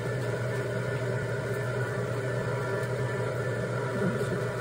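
Electric potter's wheel running with a steady motor hum as the wheel head spins under the potter's hands.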